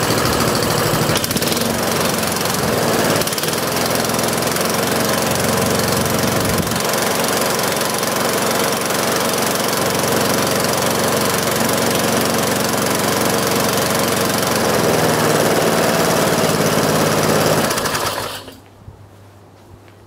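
Tecumseh 4 HP engine on an MTD rotary lawnmower running steadily after a full service, showing that the mower now starts and runs. It stops suddenly near the end.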